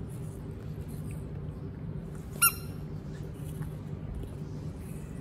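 A baby monkey gives one short, high-pitched squeak about halfway through, over a steady low hum.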